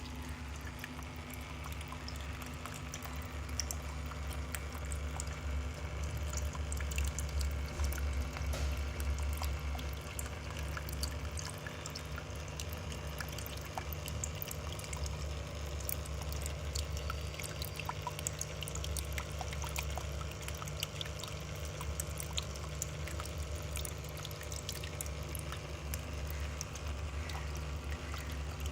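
Handmade indoor water fountain running: water trickling and dripping steadily, with many small splashes and a steady low hum underneath.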